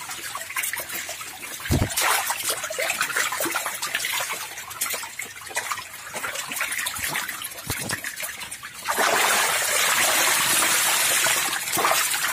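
Densely crowded climbing perch thrashing at the surface of a fish tank, with irregular splashes and water slapping. From about nine seconds in, the churning turns into a louder, steadier rush of water.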